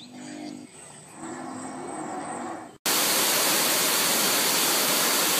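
Water rushing down a small rock cascade: a loud, steady rush that starts abruptly about three seconds in. Before it, quieter sound with a short low hum at the start.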